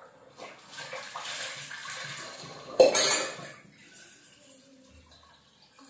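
Tap water running into a steel bowl, then a sharp clank of steel dishes about three seconds in that rings briefly.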